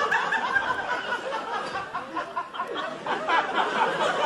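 Audience laughing, many voices at once, after a punchline.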